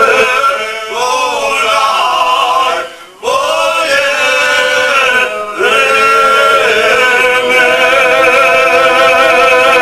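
A group of men singing a traditional Serbian village folk song unaccompanied, several voices together, holding long drawn-out notes that bend and slide in pitch. The singing breaks off briefly about three seconds in, then carries on.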